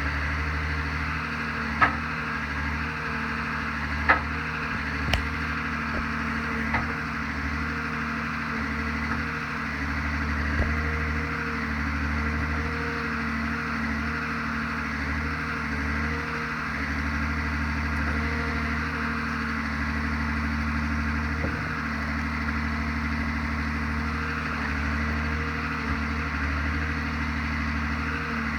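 A timber forwarder's diesel engine running steadily while it handles logs, with a few sharp knocks of logs striking wood in the first several seconds.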